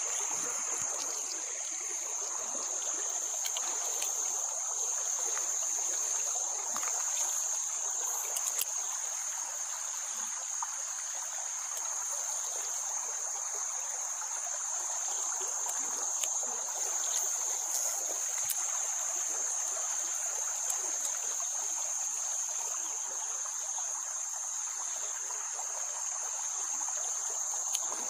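Insects droning steadily in one unbroken high-pitched buzz, over a soft even hiss.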